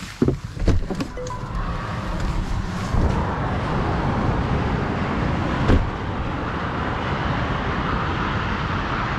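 Road and wind noise from a Mercedes-Benz EQS 580 electric car on the move, with no engine note, growing louder over the first few seconds and then holding steady. A few sharp knocks come in the first second or so, and a single thump about six seconds in.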